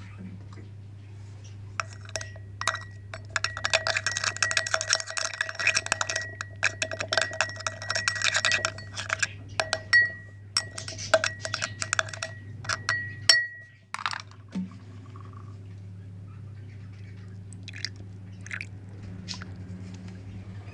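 A stick scraping and rattling fast inside a plastic coolant reservoir, from about two seconds in to about two-thirds of the way through, then only a few scattered taps. A steady low hum runs underneath.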